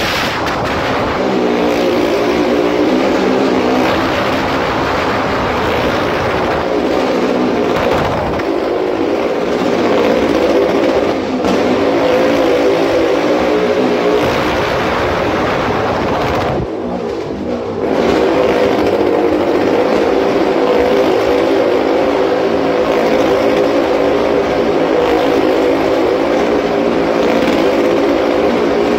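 Motorcycle engine running hard as it circles the vertical wooden wall of a wall-of-death drum, with one brief drop in level about two-thirds of the way through.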